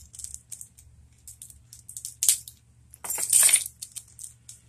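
A small metal hand tool being opened and worked against plastic wrap: scattered light clicks and scrapes, with a sharp click a little past two seconds and a louder scratchy burst about three seconds in.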